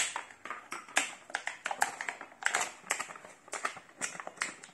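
Clear plastic packaging bag crinkling and crackling as it is handled and pulled open, in quick irregular crackles with the sharpest right at the start.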